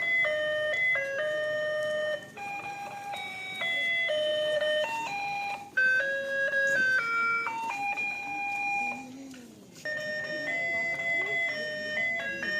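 A simple electronic tune of plain beep-like notes, one note at a time, stepping up and down in pitch, with a short break about nine seconds in.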